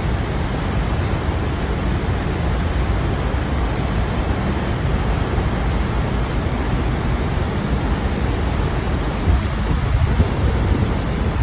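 Horseshoe Falls at Niagara and the churning river at its base, heard close up from water level: a loud, steady, unbroken rush of falling and crashing water, heaviest in the low end.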